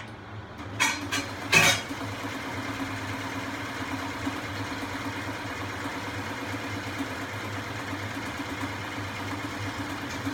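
Electric sewing machine motor running steadily with an even hum, after a few sharp knocks in the first two seconds.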